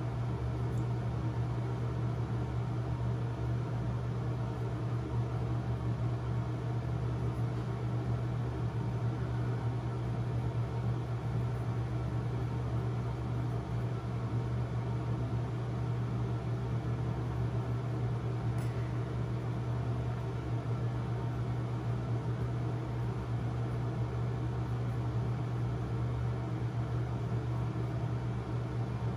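Steady low electric hum of a small motor.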